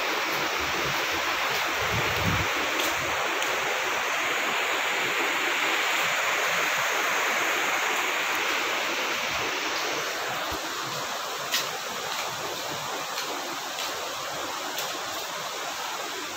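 River rapids rushing steadily, strongest in the first ten seconds and then a little fainter. A few sharp clicks come in the second half.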